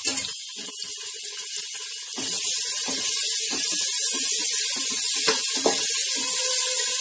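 Chopped onions frying in hot mustard oil in an aluminium pressure cooker, sizzling, the hiss growing louder about two seconds in as they are stirred. A wooden spatula knocks and scrapes against the pot several times.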